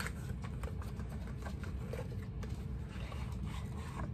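Small cardboard box being opened by hand and a glass dropper bottle slid out: scattered light clicks and scrapes of the cardboard flap and packaging over a steady low background rumble.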